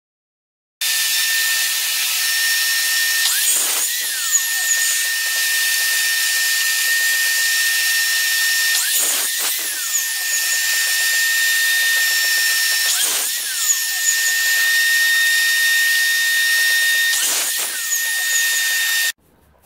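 Electric miter saw running steadily with a high motor whine, making four short cuts through small wood pieces about every 4 to 5 seconds. The whine dips briefly as the blade bites into each piece. The saw starts and stops abruptly.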